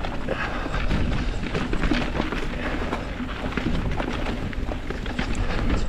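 Mountain bike descending a dirt trail: wind rumbles on the microphone over tyre noise, with frequent quick clicks and rattles as the bike crosses rough ground.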